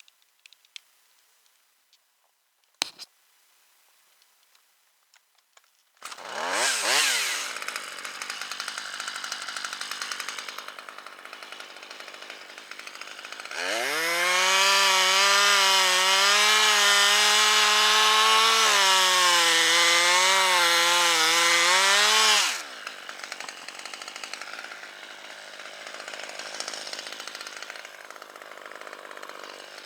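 Large two-stroke chainsaw starting up about six seconds in with a quick rev, then idling. Near the middle it is held at high revs for about nine seconds, the pitch dipping and recovering, before dropping back to idle.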